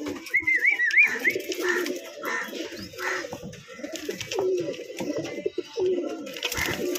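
Domestic pigeons cooing, several low calls one after another, with a sharp knock near the end.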